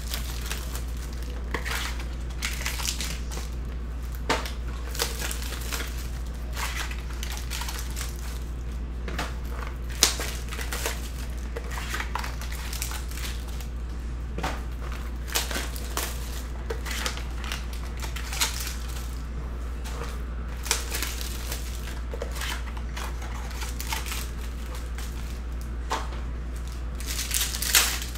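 Silver foil trading-card pack wrappers crinkling as they are handled, with many short, sharp crackles over a steady low hum.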